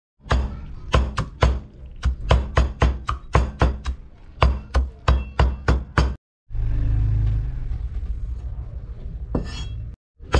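Steel cleaver chopping soaked mushrooms on a wooden chopping board: quick, even strikes about three a second for some six seconds. Then the strikes stop and a steady low hum takes over, with one more knock near the end.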